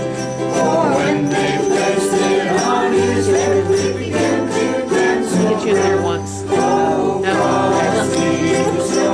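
A ukulele ensemble strumming a Christmas tune, with jingle bells shaking along and a group of voices singing.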